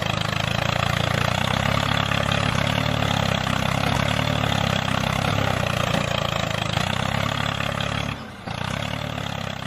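Tractor engine running steadily at a low, even idle-like pace, with a brief dip in level about eight seconds in.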